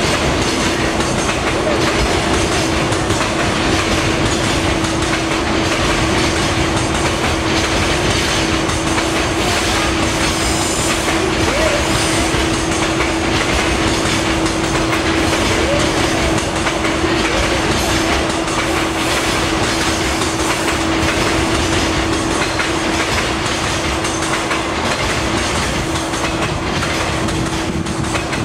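Freight train's loaded container flatcars rolling past, their wheels clattering over the rail joints with a steady rumble, and a steady hum running underneath. The sound eases a little near the end as the last wagons go by.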